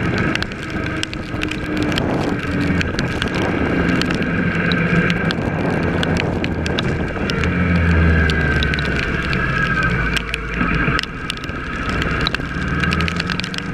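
Kawasaki ER6's parallel-twin engine running under way on the road, its pitch shifting with speed, mixed with wind rushing over the microphone and frequent sharp ticks.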